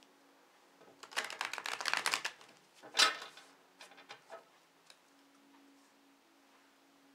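Tarot deck being riffle-shuffled by hand: a rapid run of card flicks for about a second, then one louder crackle as the cards fall together about three seconds in, followed by a few light taps.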